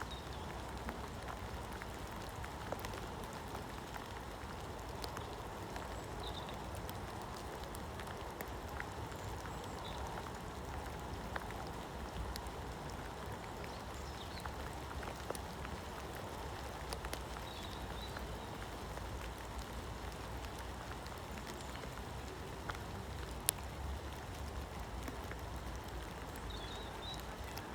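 Steady rain falling, with many small, sharp drop hits scattered through it.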